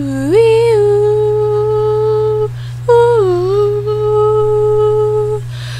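A young woman humming two long held notes, each opening with a swoop in pitch.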